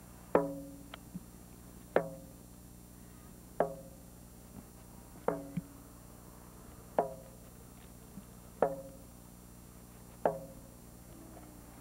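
A drum struck in a slow, steady beat, about one stroke every second and a half, each stroke ringing briefly before dying away.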